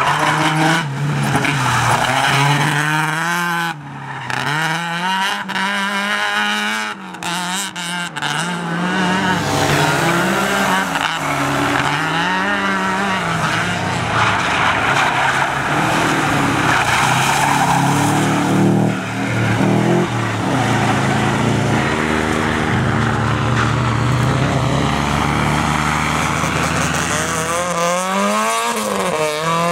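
Rally cars driven hard through tight turns on a tarmac course: engines revving up and dropping back over and over as they accelerate and brake, with tyres squealing.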